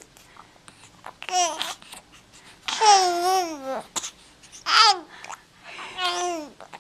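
Baby babbling in four high-pitched, sing-song vocal sounds, the longest about a second long with a wavering pitch.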